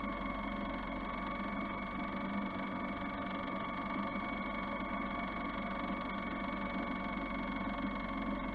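Homemade brushless kayak motor, driving a trolling-motor propeller through an RC crawler gearbox, running at a steady speed on a 2S battery: a steady whine over the rush of water.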